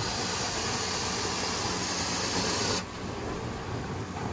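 Carpet-cleaning extraction wand hissing steadily on the carpet as it sprays and sucks up hot water. It cuts off suddenly a little under three seconds in, leaving the steady low hum of the extraction machine.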